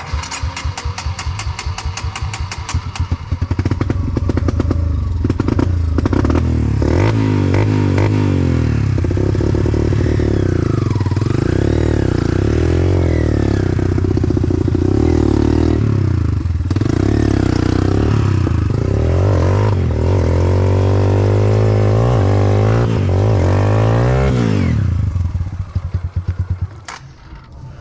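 Enduro dirt bike engine running at low revs, then revved hard up and down over and over for about twenty seconds as the bike labours up a slippery mud slope, dropping back near the end.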